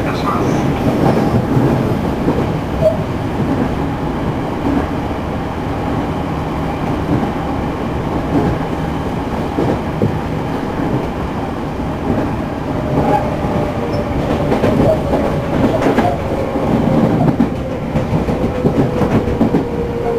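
Interior running sound of a JR Central 211 series motor car (KuMoHa 211-5612), a car known for an unusually loud noise from its internal-fan traction motors: wheels clattering over rail joints under steady rumble. From about two-thirds of the way through, a motor whine falls slowly in pitch as the train slows.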